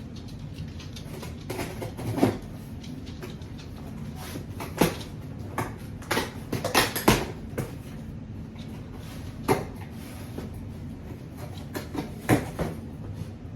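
A package being opened and its contents handled: scattered knocks, clicks and rustles, some coming in quick clusters, over a steady low background hum.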